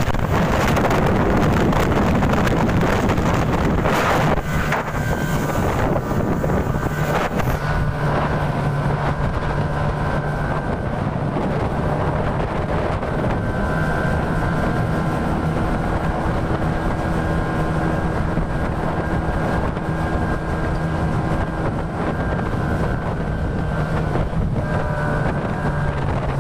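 Speedboat engine running steadily at cruising speed, with wind buffeting the microphone, heaviest in the first several seconds, and water rushing past the hull.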